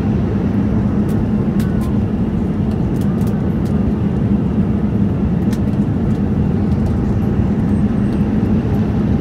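Boeing 787 Dreamliner cabin noise at a window seat in cruise: the steady, deep roar of the jet engines and the airflow over the fuselage, with a few faint ticks now and then.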